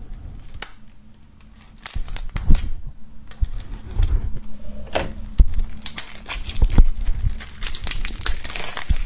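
Plastic shrink wrap on a CD jewel case being slit with a knife and peeled off, crinkling and crackling with scattered clicks. The crackling starts about two seconds in and is densest near the end.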